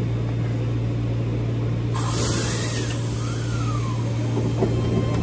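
Stopped electric train giving a steady low electric hum. About two seconds in, a sudden hiss of released compressed air, typical of the train's air brakes, starts and fades over about a second.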